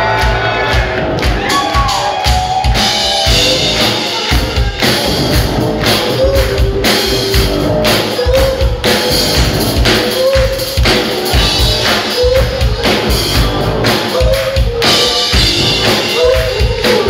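Live rock band playing loud: electric guitar, electric bass and drum kit with a steady beat, and a male voice singing lead over them.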